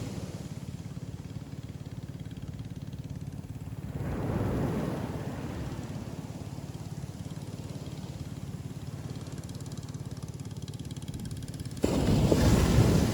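Ocean surf on a beach: a lull with a steady low rumble underneath, a softer wash of surf about four seconds in, and a loud wave breaking and rushing in suddenly near the end.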